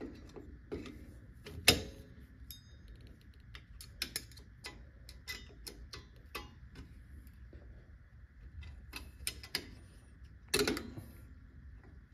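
Irregular metallic clicks and clinks of pliers and a hook tool working at the bottom return spring and shoes of a car's rear drum brake, the spring proving hard to unhook. There is one sharp snap about a second and a half in and a louder clatter near the end.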